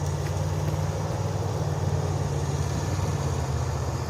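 Engine of a Zenit Pro all-terrain vehicle running steadily at an even, low speed with a fast, regular low pulsing.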